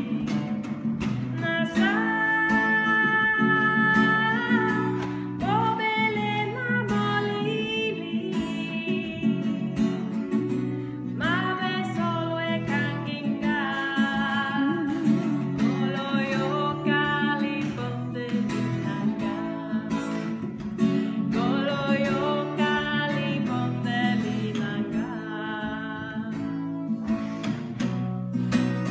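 A woman singing a hymn in Lingala, her melody sliding between notes, over steadily strummed acoustic guitar chords.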